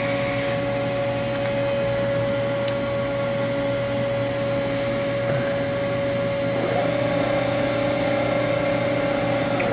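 Haas CNC mill running a program with a steady machine hum. About seven seconds in, the spindle spins up with a quickly rising high whine, holds speed for a few seconds, then winds down near the end: the spindle is spinning to throw coolant off the tool before laser tool measurement.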